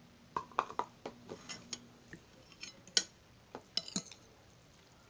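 Metal fork clinking and scraping against a plate of shrimp and noodles, a string of short sharp clicks that is loudest about three and four seconds in.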